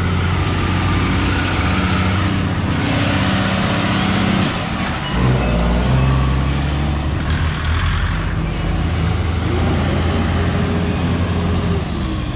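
Kenworth T800 tractor-trailer's diesel engine labouring up a steep curve under a heavy load. Its note drops and grows louder about five seconds in, with rushes of hiss around three and eight seconds in.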